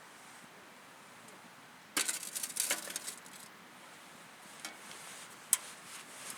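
Cookware and utensils being handled: a short run of rattling clinks about two seconds in, then two single sharp clinks near the end.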